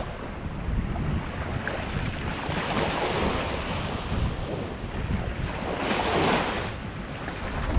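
Surf breaking and washing up the beach, with wind buffeting the microphone; a wave surges in louder about six seconds in.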